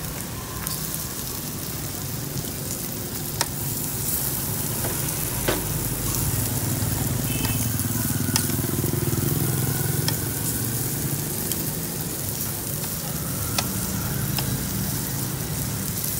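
Pork belly sizzling on a round slotted metal tabletop barbecue grill, with a few sharp clicks of steel tongs against the grill as the meat is turned, over a steady low hum.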